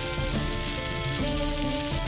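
Food sizzling as it fries, under background music of held notes that change every half second or so.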